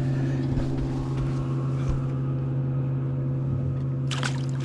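Boat motor running at a steady speed, a constant hum.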